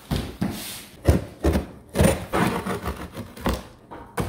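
Cardboard shipping box being set down and handled on the floor: a series of irregular thumps and cardboard rubs, ending with scissors starting to cut the packing tape.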